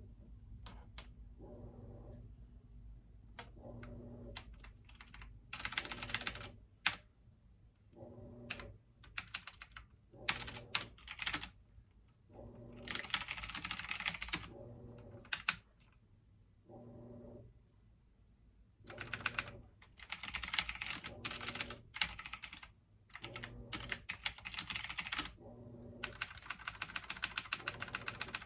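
Typing on a computer keyboard: several fast runs of keystrokes, each lasting a second or a few, with pauses in between. A low steady hum runs underneath.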